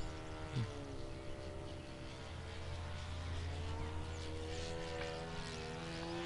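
Radio-controlled aerobatic airplane's engine and propeller droning high overhead, the pitch sinking in the first second or two and rising again about halfway through as the plane flies an outside loop.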